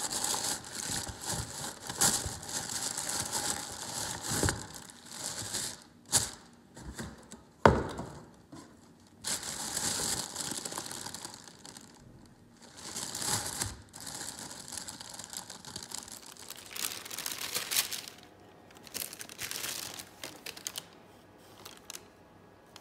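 Brown paper and a white plastic mailer rustling, crinkling and tearing in irregular handfuls as a parcel is unwrapped by hand, with a few sharp clicks, the loudest about eight seconds in.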